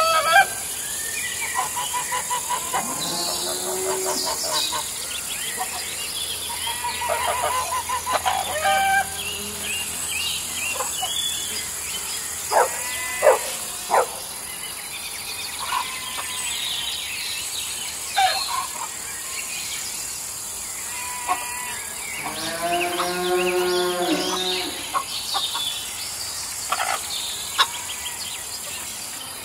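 Farm ambience: a steady high insect drone under scattered calls from farm animals. The longest and loudest call, a wavering one, comes about three-quarters of the way through.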